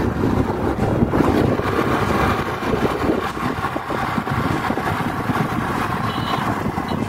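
Wind noise on the microphone over a motor scooter's engine and its tyres on the road while it is ridden.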